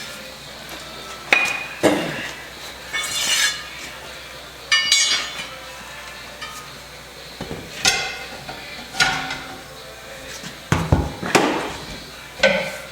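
Steel tire tools striking and prying against a truck's steel wheel rim while a tire is worked off it: a series of irregular metal clanks with short ringing, about nine in all.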